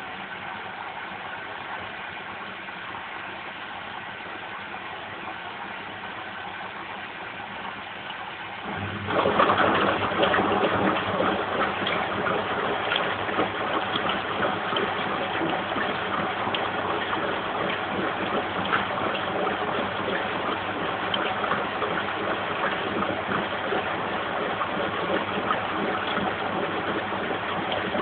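Lynx 4TS-710A washing machine on its final rinse: a steady hum, then about nine seconds in water suddenly starts gushing into the empty drum and keeps running loudly as the machine fills.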